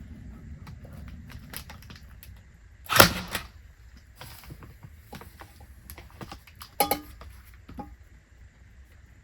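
Scattered clicks and knocks of tools and materials being handled during electrical work, with a loud knock about three seconds in and a sharper one near seven seconds, over a low steady hum.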